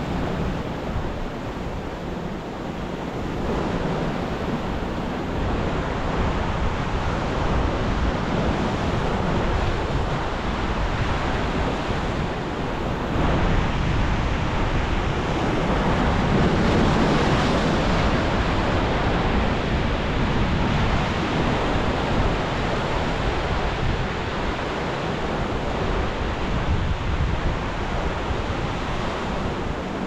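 Ocean surf crashing into a rocky canyon: a continuous wash of breaking waves that swells loudest about halfway through.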